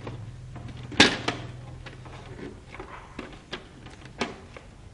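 Plastic casing of an Epson L200 printer being pried off by hand: a sharp snap about a second in as a latch lets go, followed closely by a second click, then a few fainter clicks.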